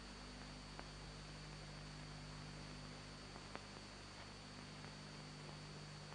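Near silence: the faint steady hum and hiss of an old film soundtrack, with a few faint clicks.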